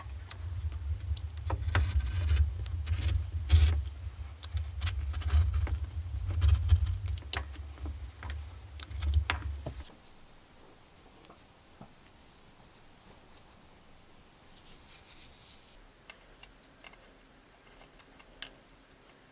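A utility knife drawn along a steel ruler, slicing a strip of leather in a run of scraping strokes over a low hum. Just before halfway the hum and cutting stop at once, leaving faint handling ticks and a single sharper click near the end.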